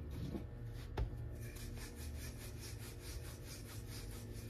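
Rolling pin (belan) rolling out a potato-stuffed paratha on a rolling board: a knock about a second in, then quick, repeated back-and-forth rubbing strokes.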